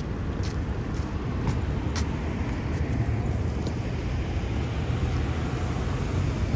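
City street traffic: a steady low rumble of passing vehicles, with a few faint clicks now and then.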